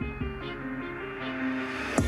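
Background music: a melody of held notes stepping from one pitch to the next.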